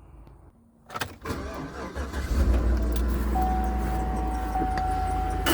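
2011 Chevy Avalanche's V8 engine being started: a click about a second in, then the engine catches about two seconds in and settles into a steady idle. A thin steady tone comes in partway through. The truck has a belt noise when cold, which the owner blames on the belt and tensioner.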